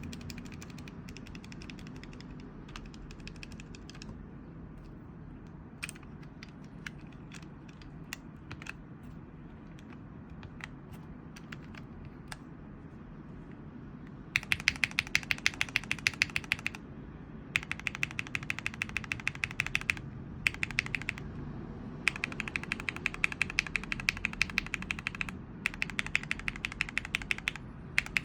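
Mechanical keyboard with Gateron Yellow linear switches in full milky housings, typed on. Single, scattered keystrokes for about the first half, then fast runs of typing with short breaks from about halfway on.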